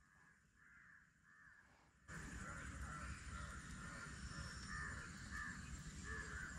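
Crows cawing over and over, several calls overlapping at about two a second. A steady low background rumble comes up suddenly about two seconds in.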